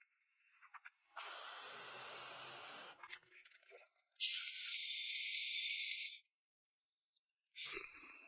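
Three separate bursts of steady hissing, each about two seconds long, that start and stop abruptly; the second and third are higher and thinner than the first.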